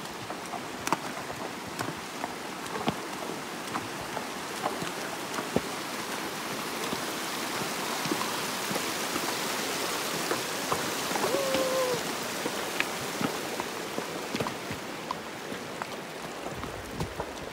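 Shallow creek water running over rocks, a steady rush that swells in the middle, with scattered sharp clicks of a horse's hooves on stones as it walks through the stream. A brief squeak sounds about eleven seconds in.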